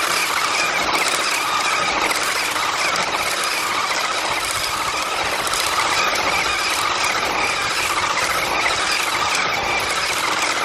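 Remote-control drift car's small electric motor whining steadily over a loud, even hiss. It cuts off suddenly at the end.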